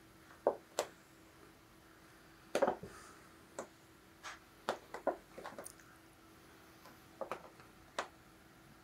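Irregular light taps and scratches, about a dozen, the strongest cluster about two and a half seconds in, as a cat swats and claws at a piece of packing twine dragged over carpet.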